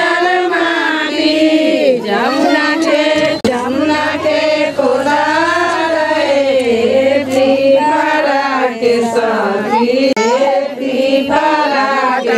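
Devotional singing: long, wavering held notes that glide between pitches, with only brief breaks.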